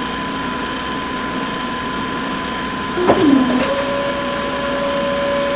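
Small DC motors of a homemade toy tractor and concrete batching plant whirring steadily. About three seconds in comes a click and a brief falling whine, then a new, higher steady whine runs on.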